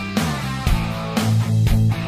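Rock music with guitar over a steady drum beat, about two beats a second.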